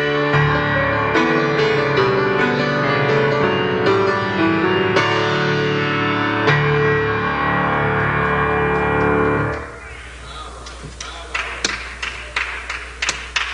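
Solo grand piano playing a slow, sustained piece that ends about nine and a half seconds in. After a short pause, hand clapping follows at about three claps a second.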